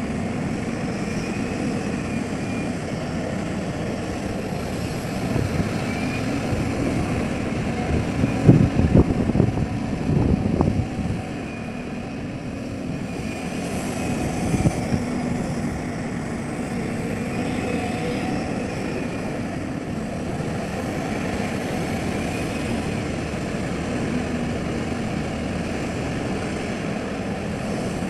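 Excavator's diesel engine running steadily, with a faint hydraulic whine rising and falling every few seconds. A burst of heavy, irregular clattering comes about a third of the way in, and a shorter one about halfway.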